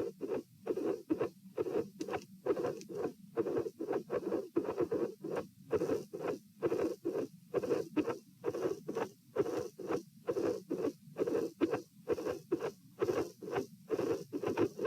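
Heartbeat heard through a stethoscope at the pulmonic listening point, a steady lub-dub about once a second. The recording is of a dilated aortic root, described as carrying midsystolic murmurs and an irregular, cyclically varying second heart sound.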